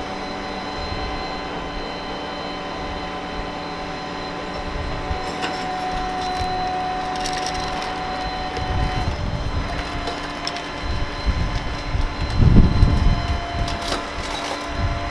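Steady mechanical hum of an idling vehicle engine with a faint steady whine. From about halfway through, irregular low rumbles that sound like wind buffeting the microphone come in gusts, loudest a little before the end.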